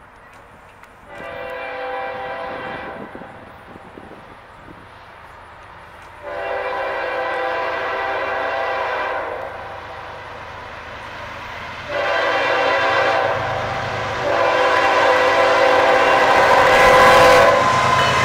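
Locomotive multi-chime air horn sounding a chord in four blasts, long, long, short, long: the standard grade-crossing signal of an approaching train. The rumble of the oncoming train builds under the last two blasts.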